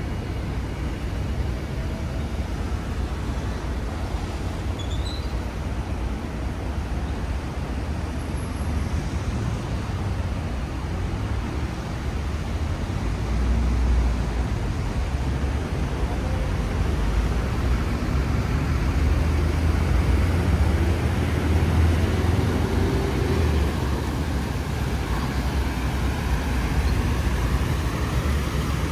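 City street ambience: a steady low rumble of passing road traffic, swelling a little around the middle as vehicles go by.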